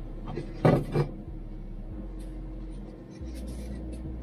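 Two quick knocks, about a second in, as parts are handled on a car's shock absorber strut during assembly, followed by light rubbing and ticking, over a steady low hum.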